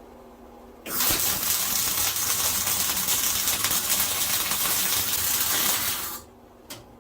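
Electric arc welder running a bead for about five seconds, a steady crackling sizzle that starts about a second in and cuts off near the end. The bead seals the seam of a forge-weld billet so no oxygen can reach the weld faces.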